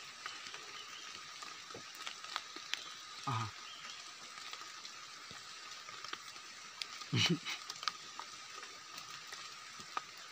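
Faint rustling and small clicks of hands working in forest leaf litter while picking wild mushrooms, over a steady high background hum. Two brief vocal sounds break in, about three seconds in and again about seven seconds in.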